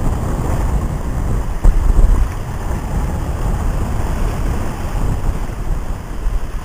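Wind buffeting the microphone over the rush of water along the hull of a Moody 42 sailing yacht under way downwind, in gusts that peak about two seconds in.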